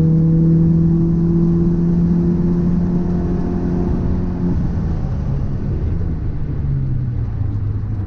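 Car on the move with a steady droning hum over road rumble. About halfway through, the hum's pitch steps down and keeps falling as the car slows. The noise is one that the owner suspects comes from a drive shaft or wheel hub.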